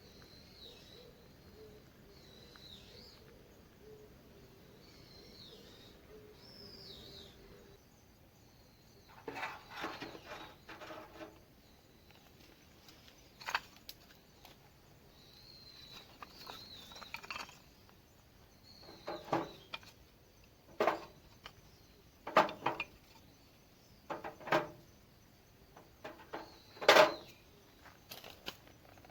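Wild birds chirping, with a string of sharp knocks and clattering from about nine seconds on, the loudest a little before the end.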